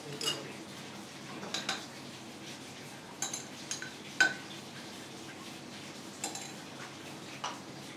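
Dishes and utensils clinking and knocking, about eight light separate strikes, the loudest about four seconds in.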